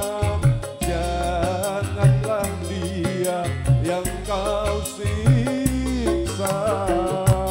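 Live dangdut koplo music: a man singing over keyboard, electric guitar, bass and the kendang hand-drum rhythm.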